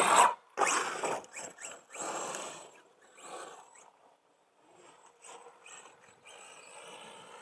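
Losi DBXL-E 2.0 electric RC buggy landing a jump with a sudden thud in the first second, then its motor whining in bursts of throttle as its tyres spray dirt. The bursts fade as it drives away.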